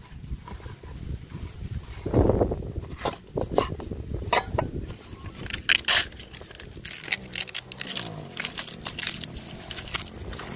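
Pieces of young jackfruit and a broad kitchen knife knocking on a wooden chopping board as they are handled and set down. There is a heavy low thump about two seconds in, then a run of sharp knocks, most of them between three and six seconds in.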